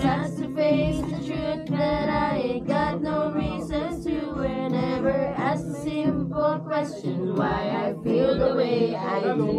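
Casual group singing, women's voices prominent, over steady strummed acoustic guitar chords.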